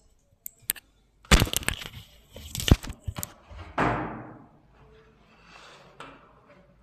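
Handling noise close to the microphone: a few clicks, then about two seconds of loud crackling and rustling with sharp knocks, followed by a fading swish and softer rustles.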